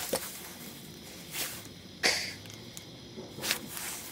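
A few short clicks and rustles of hands handling a two-part epoxy tube and its plastic packaging, the loudest about two seconds in.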